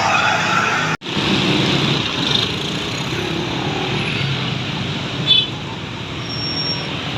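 Roadside traffic noise as vehicles pass, with a brief drop-out about a second in. A short, sharp high-pitched sound cuts through about five seconds in.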